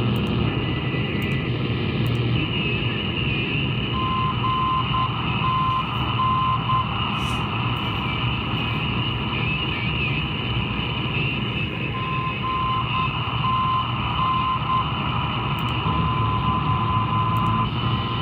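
Shortwave receiver audio from an SDRplay RSP2: steady radio static with a Morse code (CW) signal, a single-pitched tone keyed on and off in short and long beeps, coming in three runs. A fainter wavering tone sits higher up in the noise.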